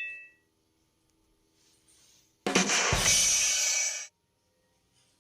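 A short drum-kit sting: a drum hit with a cymbal crash that rings for about a second and a half and then cuts off abruptly. It is preceded by the fading tail of a metallic clang.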